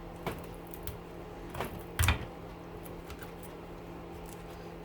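A few sharp metal clicks and knocks, the heaviest about two seconds in, as a screwdriver is worked against the copper windings of a motor rotor. A steady low hum sits underneath.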